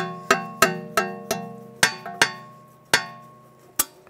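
Background music: plucked, bell-like notes in an uneven rhythm, each ringing and fading, over a low steady hum.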